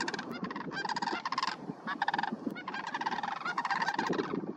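A flock of sandhill cranes calling, with many rolling, rattling calls from several birds overlapping and a brief lull about halfway through.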